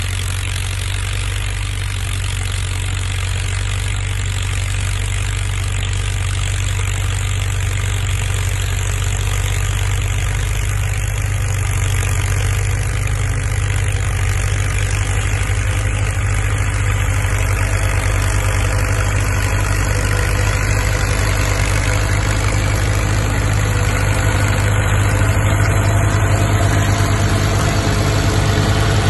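Linn tractor's engine running steadily as it tows the caboose over snow, growing gradually louder as the tractor approaches.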